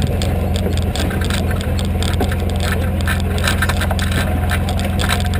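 Off-road vehicle engine running at a steady low speed, with rattling and clattering as it rolls over the rocky dirt trail.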